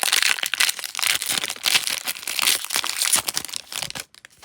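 Foil wrapper of a Pokémon card booster pack crinkling loudly as it is opened and handled, a dense run of crackles that thins out near the end.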